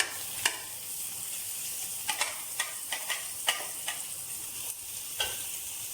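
Onions and boiled chicken pieces sizzling as they fry in oil in a pan, with a steady hiss. A spoon stirring the pan clicks and scrapes against it at irregular moments, several clicks coming close together around the middle.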